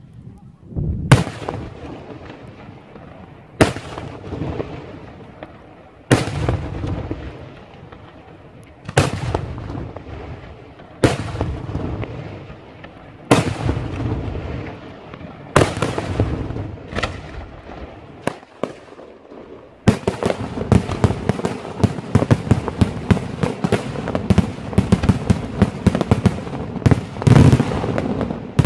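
Daytime fireworks display: single loud shell bangs about every two to three seconds, each dying away in a rolling echo. About two-thirds of the way through it turns into a dense barrage of many rapid small bangs and crackles.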